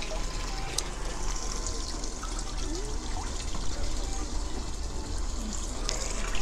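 Water trickling and splashing steadily in a koi tank.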